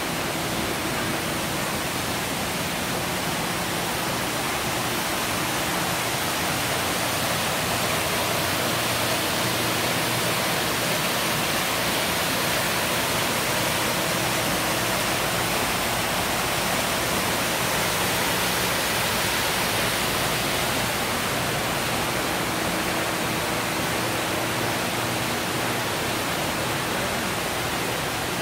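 Steady rushing hiss of flowing hot spring water, even and unbroken throughout.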